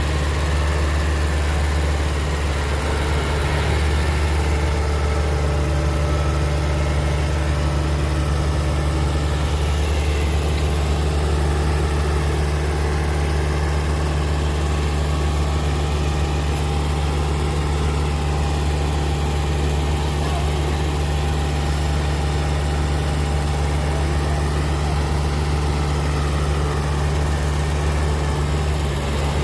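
Heavy diesel engine idling steadily, a deep even drone that holds the same pitch throughout.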